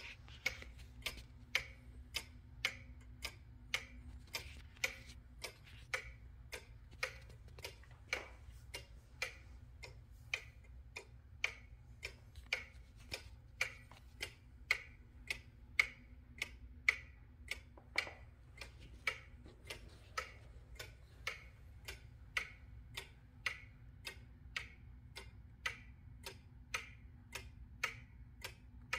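Antique German Gothic-style Furderer Jaegler cuckoo clock ticking steadily, about two ticks a second, from its weight-driven movement.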